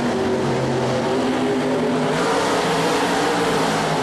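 Several IMCA modified race cars' V8 engines running hard together at once, each at its own pitch, rising and falling slightly as the cars go through the turn.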